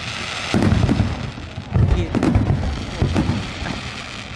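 Aerial fireworks bursting: a run of deep booms beginning about half a second in and bunching through the middle, over a crackling hiss from the glittering stars.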